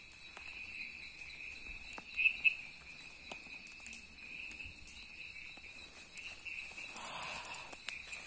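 Night insects, crickets among them, keep up a steady high trill, with two louder chirps about two seconds in. A few faint clicks and a short rustle near the end break through.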